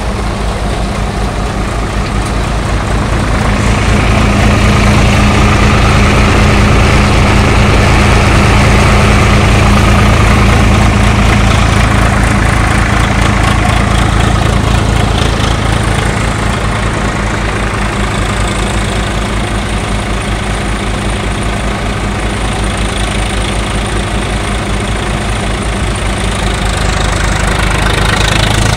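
Swaraj tractor's diesel engine running steadily under load, driving a side-tokri thresher as crop is fed in, with the machine's broad rushing noise over the engine. It grows louder a few seconds in and eases off about halfway through.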